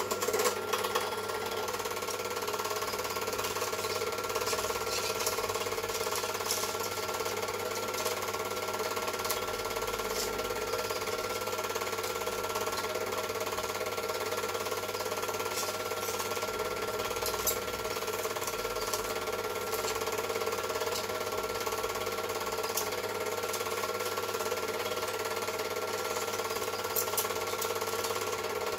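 Super 8 film projector running: a steady mechanical whir with a constant hum, with a few clicks about a second in and faint ticks now and then.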